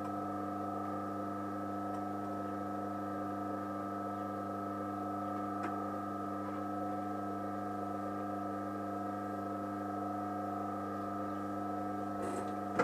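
Steady electric hum of a leather-stitching machine's motor, switched on and running at an even pitch with no stitching rhythm. One faint click about six seconds in.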